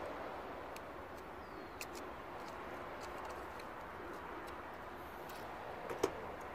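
Faint clicks and taps of a bonnet latch and its switch spring being handled and worked by hand, over steady background noise. The sharpest click comes about six seconds in.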